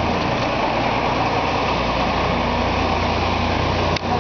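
Steady low hum with a constant hiss over it, and a single short click near the end.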